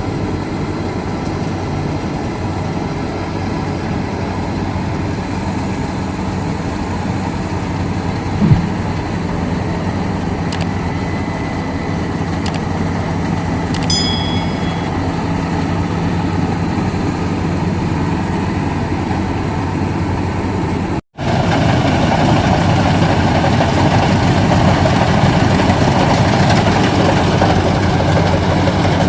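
Maxxi Bimo 110 Plus combine harvester running steadily. There is a single knock about a third of the way in, and a cut about two-thirds through, after which it is louder.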